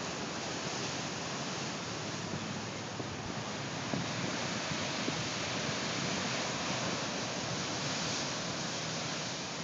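Pacific Ocean surf breaking and churning among coastal rocks: a steady, unbroken rush of whitewater with no separate crashes standing out.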